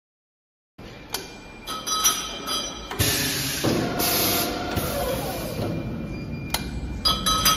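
CNC double-head tube chamfering machine running, with sharp metallic clanks that leave a ringing tone. A loud rushing hiss starts about three seconds in and lasts nearly two seconds. The sound starts after a short silence.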